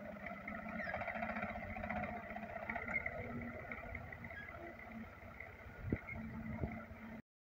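Tractor's diesel engine running steadily under load as it pulls a planter, fading a little as it moves away; the sound cuts off suddenly near the end.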